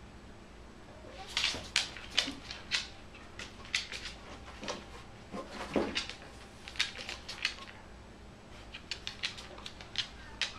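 A corgi's claws clicking and tapping on a hardwood floor as it walks and turns about, in an irregular string of sharp clicks with a pause in the middle.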